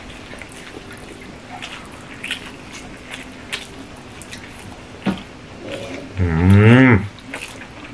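Hand-eating sounds: soft smacks and small clicks of fingers squishing rice and curry on steel plates and of chewing. About six seconds in comes a loud, low, wavering 'mmm' hum from one of the diners, lasting under a second.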